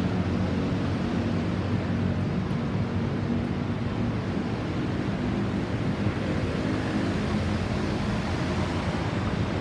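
A vehicle engine running steadily amid road traffic noise.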